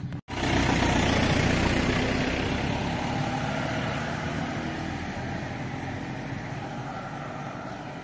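A motor vehicle engine running, slowly fading, after a short break in the sound just after the start.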